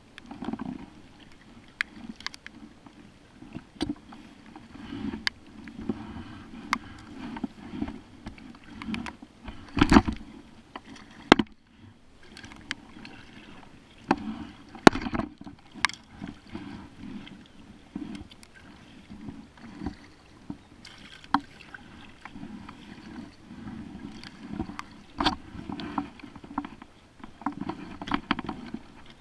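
Paddling a plastic sit-on-top kayak: the paddle sweeps through the water in repeated swishing strokes, with sharp knocks and clicks scattered between them, the loudest about a third and half of the way through.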